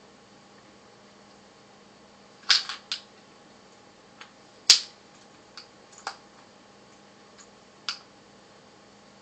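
Scattered sharp clicks and taps of small hard parts and tools being handled, about eight in all, some in quick pairs, the loudest about halfway through.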